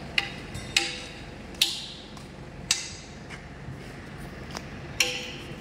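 Sharp metal-on-metal knocks, about five at uneven intervals, each with a short ring: a steel bar striking the stripped Cummins KT1150 diesel engine block while the camshaft is worked out.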